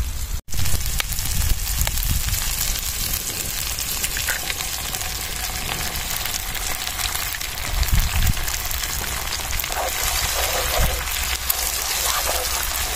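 Eggs and chopped vegetables frying in hot oil in a small wok, a steady sizzle, as eggs are cracked into the pan. Near the end a wooden spatula works through the eggs.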